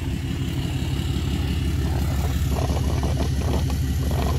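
Large vehicle engine idling steadily, a low even rumble.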